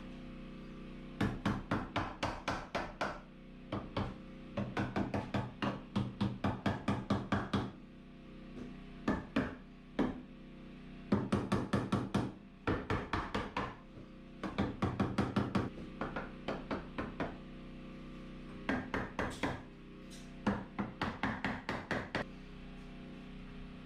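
Hammer driving nails into wooden framing studs, in quick runs of about five blows a second, with short pauses between the runs.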